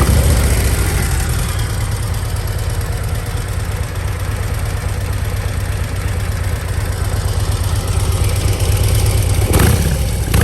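Harley-Davidson Milwaukee-Eight 121 V-twin running steadily at idle through the stock Screaming Eagle titanium exhaust, a deep, even low-end sound that the owner finds quiet and likens to a sewing machine.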